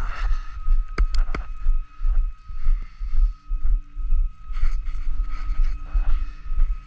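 Flatbed tow truck's winch taking up the slack in its cable before it comes under tension, over a heavy throbbing low rumble. A few sharp clicks come about a second in, and a steady hum joins about halfway through.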